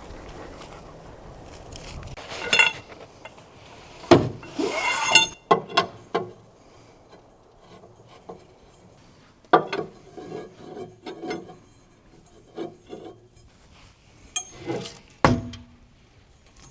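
Camp gear being handled: irregular knocks, clicks and rubbing as things are moved and set down. There are a few loud knocks, one about four seconds in, one past halfway and one near the end, with clusters of lighter clicks between them.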